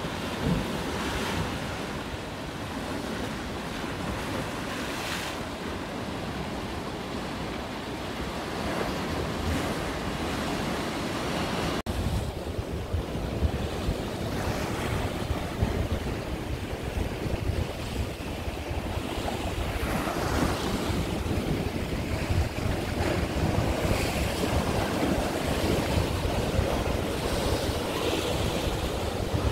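Sea waves breaking and washing over a rocky shore, a continuous rush of surf that swells irregularly, with wind rumbling on the microphone, heavier after a cut about twelve seconds in.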